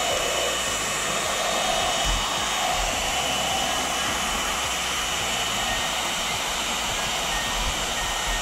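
Handheld hair dryer running steadily, a rush of blown air with a faint steady whine, aimed at a glued plastic base cover.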